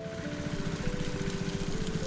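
A small engine running steadily with a fast, even pulse, under background music with mallet-like notes.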